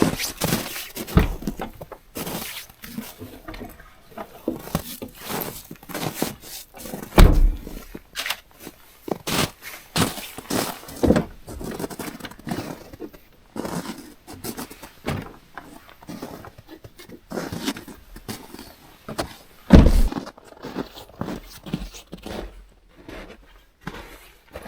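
Irregular knocks, thuds and snapping of wood being handled, with two heavier thumps, one about seven seconds in and one near twenty seconds. No chainsaw is running.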